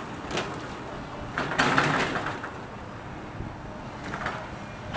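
Demolition machine breaking up a building, with crunching and clattering of debris that is loudest about a second and a half in, over a steady background rumble.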